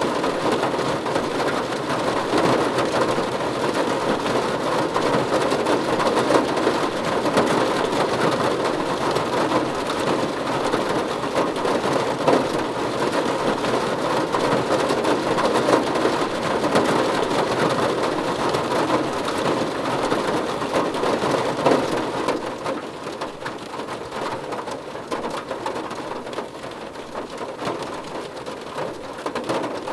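Steady rain falling, a dense patter of drops on a surface. It grows quieter about three-quarters of the way through and picks up again near the end.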